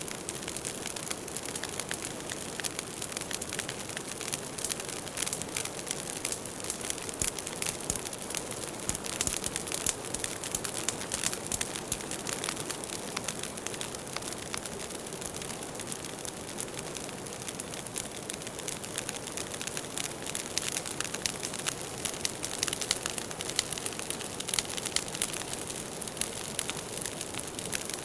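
Burning firewood crackling steadily, a dense run of small snaps and pops over the hiss of the fire.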